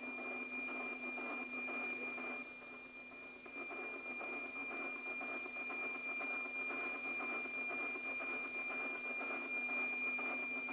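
NOAA 15 weather satellite's APT image signal on 137.62 MHz, received on a Yaesu FT-847 and heard through its speaker: a steady high tone over a noisy hiss, which dips briefly about three seconds in.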